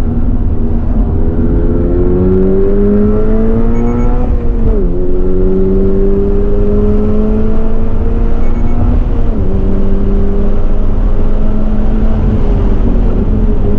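2023 Subaru BRZ's 2.4-litre flat-four engine at full throttle, heard from inside the cabin, revving up through the gears. Its pitch rises, drops at an upshift about five seconds in and another about nine seconds in, then climbs again, over steady road and wind noise.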